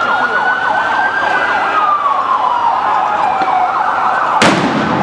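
Two emergency sirens sounding together, one in a fast warble and the other in a slow rising-and-falling wail. A single sharp, loud bang cuts across them near the end.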